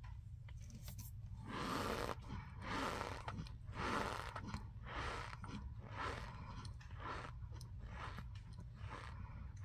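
Raw cornstarch being chewed: a run of crunches about once a second, loudest in the first half and growing fainter toward the end.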